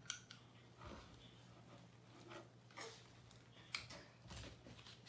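Quiet room with a faint steady hum, broken by five or six short, light clicks and taps as a baby handles a small hard object and moves about.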